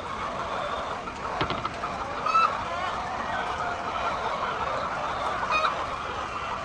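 A flock of laying hens clucking, many birds at once, with a single sharp click about a second and a half in.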